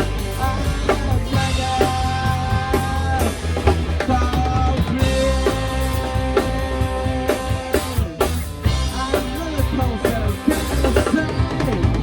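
Rock band playing a punk song live in rehearsal: a drum kit with kick and snare drives steadily under a full band, with long held melody notes over a heavy low end.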